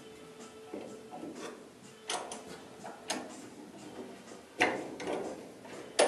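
A steel C-clamp and a wooden block knocking and clattering against the VW bus's sheet-metal underframe as the clamp is fitted into place: a few sharp knocks, the loudest two about four and a half seconds in and near the end.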